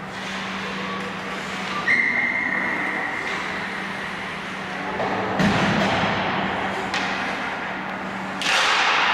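Ice hockey game sounds in a rink: one steady whistle blast about two seconds in, then hard thuds of play against the boards around the middle, and a burst of scraping, rushing noise near the end, over a steady low hum.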